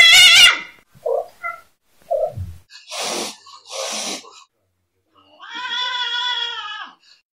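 A cat yowling and hissing: a loud rising yowl at the start, a few short chirps, two hisses about three and four seconds in, then one long, steady meow near the end.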